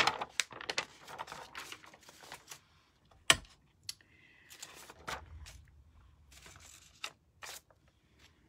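Paper and small objects being handled on a craft mat: scattered clicks, taps and paper rustling, with one sharp knock about three seconds in.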